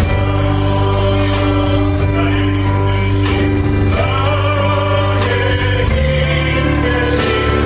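Christian worship song sung by a group of voices over a band with steady bass and a regular beat.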